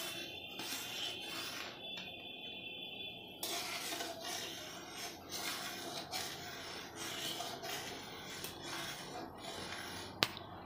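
A steel spatula scraping and stirring thick, reducing milk in a stainless steel pan, in repeated rasping strokes; the milk is near the end of being cooked down to a grainy kalakand mass. A sharp click sounds near the end.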